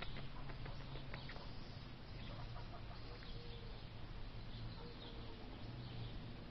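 Faint clucking of hens over a steady outdoor background hiss, with a few short, low calls spread through.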